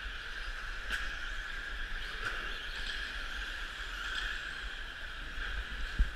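Radio-controlled Stampede trucks racing around a dirt track, their motors and tyres making a steady high whine and hiss, with a few light clicks and one dull thump near the end.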